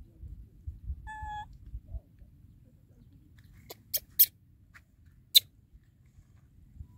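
A baby monkey gives one short, high squeak about a second in, over a low rumble of wind on the microphone. A few sharp clicks follow around the middle, the last one the loudest.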